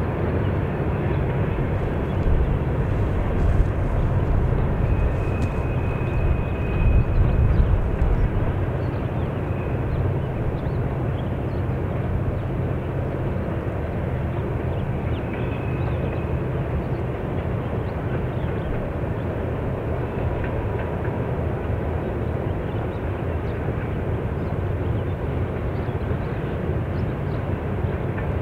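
Steady low rumble of a long freight train moving along a curving mountain line, heard from a distance. It is louder and gustier in the first several seconds, and a faint high squeal comes twice, around six and sixteen seconds in.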